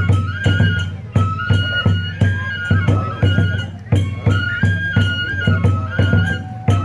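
Oni-kenbai festival music: a bamboo transverse flute playing long held notes over steady taiko drum beats, about three a second, with small hand cymbals clashing on the beat.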